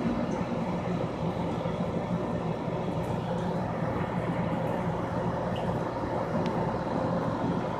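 Steady hum and rush of an aquarium pump running, with water moving and bubbling in the tank.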